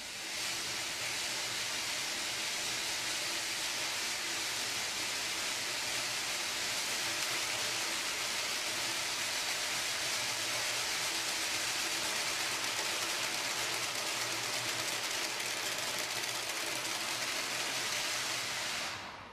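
Long metal spring vibrating in standing waves along a tabletop, its coils rattling in a steady, even hiss with a faint low hum underneath; it stops shortly before the end.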